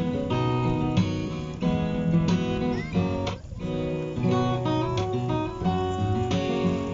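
Background music: an acoustic guitar strumming chords at a steady pace, with a brief break about halfway through.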